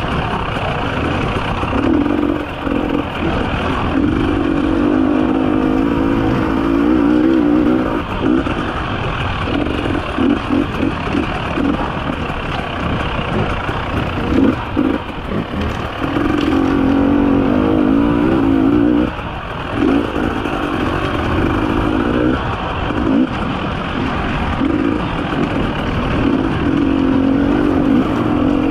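300 cc two-stroke enduro motorcycle engine, heard from on the bike. The throttle rolls on and off repeatedly, so the engine note rises and falls, with short drops as the throttle is shut.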